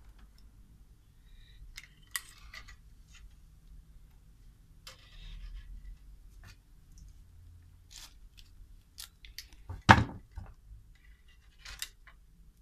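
Light scattered clicks and scrapes of a thin steel wire being bent by hand and small tools being handled on a workbench, with one sharp knock about ten seconds in.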